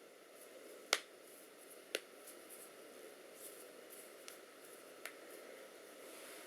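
A few light, sharp clicks, the two clearest about one and two seconds in and fainter ones after, over a faint steady hiss.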